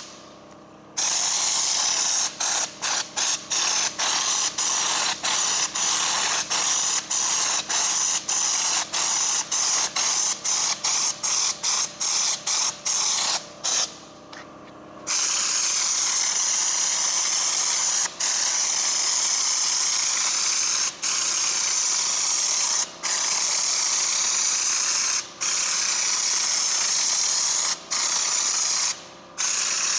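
Compressed-air schutz-type spray gun with a screw-on bottle hissing as it sprays a fine-textured coating. It comes in short trigger bursts, about two a second, through the first half, stops for about a second near the middle, then runs in longer blasts of several seconds.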